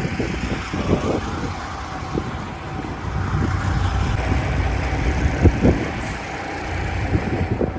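A semi truck's diesel engine running steadily, with wind rumbling on the microphone and scattered short knocks.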